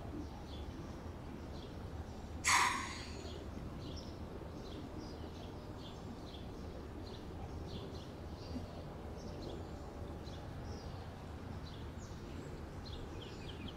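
Outdoor ambience: small birds chirping in short repeated calls over a steady low background rumble, with one brief louder swish about two and a half seconds in.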